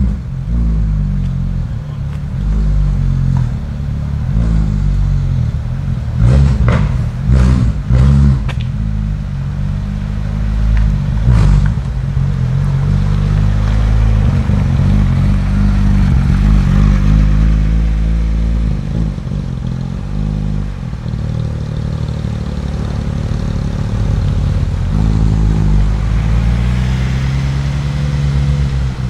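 Porsche 991.2 GT3 RS's 4.0-litre flat-six running through an iPE straight-pipe exhaust at low speed, its pitch rising and falling with throttle blips. Several sharp exhaust cracks come between about six and twelve seconds in.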